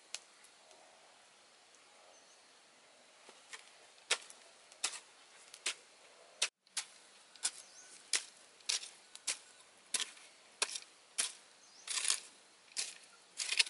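A hoe chopping into damp soil and stones in a steady series of sharp strikes, about three every two seconds, starting a few seconds in.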